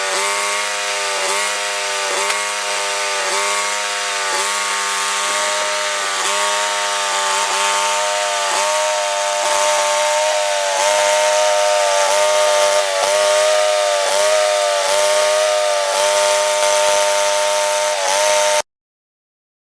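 Engine-driven portable bandsaw mill running under load as its blade saws through a log, the engine note dipping slightly about once a second. It cuts off abruptly near the end.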